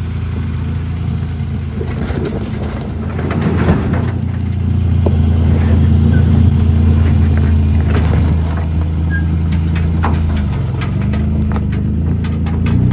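Supercharged engine of a Nissan D21 pickup built on a Pathfinder chassis, running at low revs while crawling over a rocky dirt embankment, with gravel and stones clicking and crunching under the tyres. The engine note shifts pitch a couple of times near the end.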